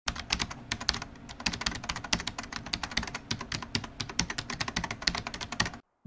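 Computer keyboard typing: a quick, uneven run of key clicks, several a second, that stops just before the end.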